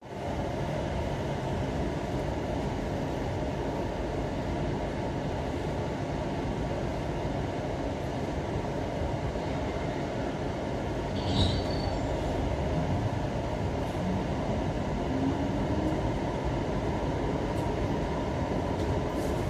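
Inside an electric commuter train's carriage: a steady rumble while it stands, a short sharp sound about eleven seconds in, then a rising motor whine as the train pulls away and picks up speed.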